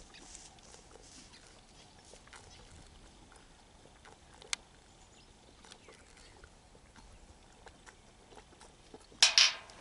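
Sheep at a fence, mostly quiet with a few faint small clicks and one sharp click, then near the end a short, loud, breathy burst from one of the sheep.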